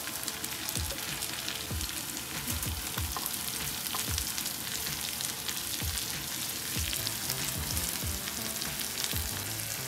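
Dried fish, onions and green chillies sizzling in hot oil in a frying pan, with a steady hiss, while a wooden spoon stirs them, scraping across the pan in repeated strokes.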